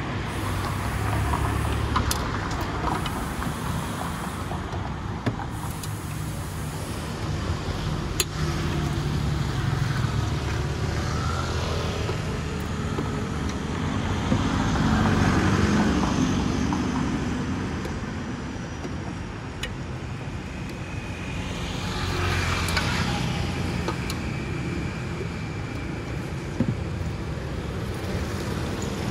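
Street traffic: a steady rumble of motor vehicles, swelling as vehicles pass about halfway through and again about three-quarters in. A few sharp clicks of the ladle and plastic cups at the drink cart.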